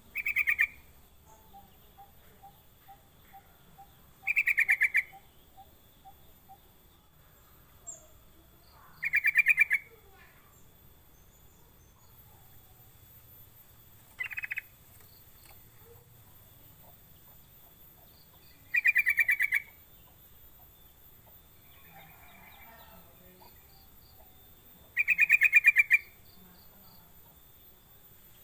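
Yellow-vented bulbul (trucuk) giving short, loud, rapid bubbling bursts of calls, six in all, about every five seconds, with quiet gaps between.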